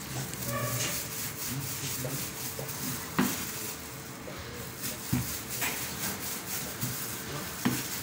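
Gloved hands rubbing and pressing pizza dough on a floured stainless-steel table, a steady scratchy friction sound. A few sharp knocks on the table, the loudest about three seconds in.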